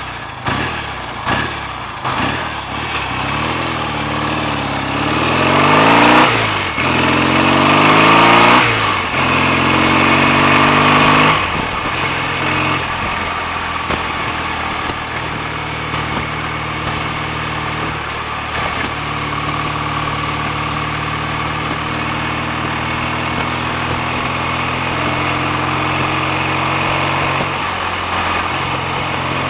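BSA A65 650 cc parallel-twin motorcycle engine accelerating hard, its pitch climbing and dropping back three times as it shifts up through the gears. It then settles to a steady cruise.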